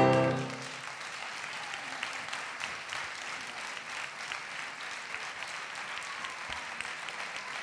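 Audience applauding steadily. A piano's final chord rings out and fades in the first second.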